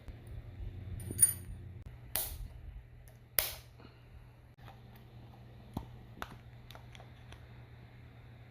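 Metal tools and parts clinking and tapping during hand work: a ringing clink about a second in, two louder sharp strikes, then several lighter ticks.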